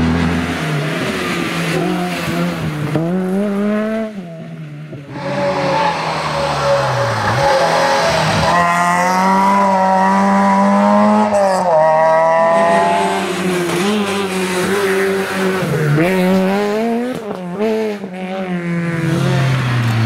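Rally cars driven hard one after another on a tarmac stage. Their engines rev high and drop back with each gear change and each lift off the throttle.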